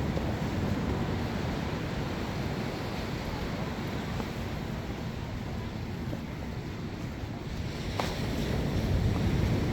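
Steady low rushing noise of wind on the microphone, with a brief click about eight seconds in.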